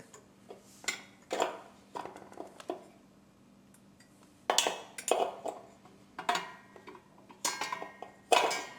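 Hard metal pieces knocking and clinking together in a string of short, separate clatters as parts are handled and fitted into place.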